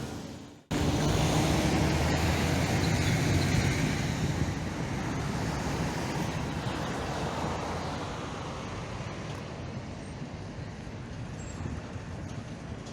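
Road traffic noise with a heavy vehicle's engine running close by, starting abruptly about a second in and slowly fading over the following seconds.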